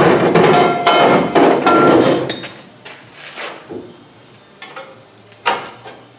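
A length of 3/16-wall steel box tubing set down and shifted across the top of a steel dump truck body, clanking and ringing for about two seconds, followed by a sharp ring and a few lighter metallic knocks as it settles into place.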